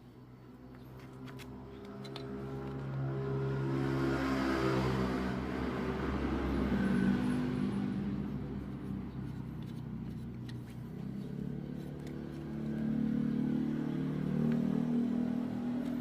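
Honda CRF dirt bike engine running and being revved, its pitch rising and falling, growing louder over the first few seconds; a test run after repair of the cylinder head bolt threads.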